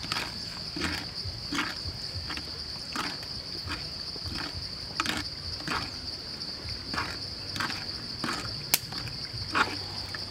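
A spoon stirring chili sauce in a coconut-shell bowl, each stroke a short scrape and swish, about three strokes every two seconds, over a steady high drone of insects; one sharp click near the end.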